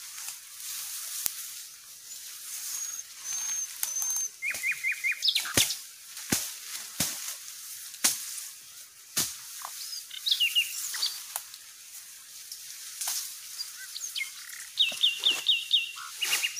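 Forest birds calling: a few high whistled notes, quick runs of repeated chirps, and a rapid series of about six notes near the end. Several sharp knocks ring out singly between about five and nine seconds in.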